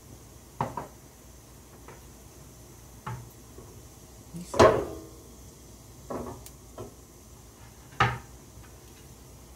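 Several short knocks and clunks of a spice jar and a wooden cutting board being put down and picked up on a kitchen counter, the loudest about halfway through and another near the end.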